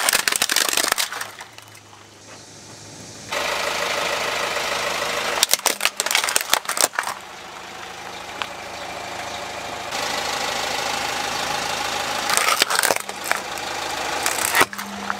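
Car engine running as the tyre rolls slowly over plastic toy vehicles on gritty concrete, with several bursts of sharp cracking and crunching as the plastic breaks.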